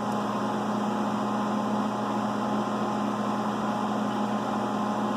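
Fadal CNC vertical machining center running with a steady, even hum.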